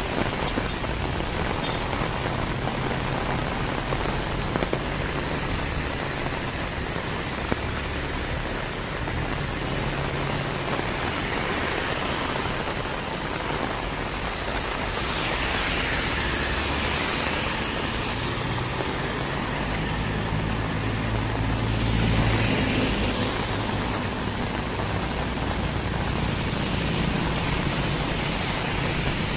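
Heavy rain falling steadily, with vehicles passing on the wet road: a swelling tyre swish about halfway through and again a few seconds later, with engine hum underneath.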